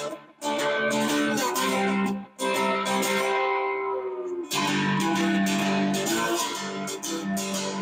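Three-string ammo-can guitar played with a slide: plucked and strummed notes with some sliding pitch, one note left ringing and fading out about two to four seconds in.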